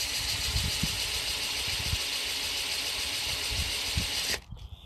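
Cordless drill running at speed, spinning a paint-covered card with a steady rush of air; it stops abruptly about four and a half seconds in.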